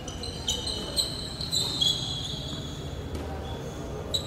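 Tennis rally on a roofed hard court: several sharp racket strikes and ball bounces, each echoing briefly in the hall, with high thin squeaks sounding between them.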